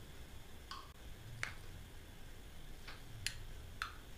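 About five faint, light clicks of a plastic spoon knocking against a glass bowl and the rims of drinking glasses while spooning chopped watermelon.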